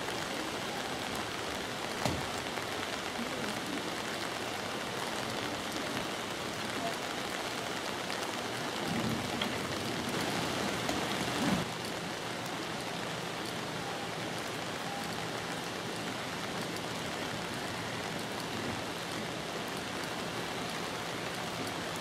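Steady rain falling on the station platform and tracks, an even hiss. A short knock sounds about two seconds in.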